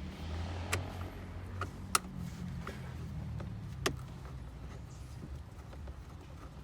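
A few sharp clicks and light knocks, about five in the first four seconds, over a low steady hum, from hands and tools working on a car's dashboard trim.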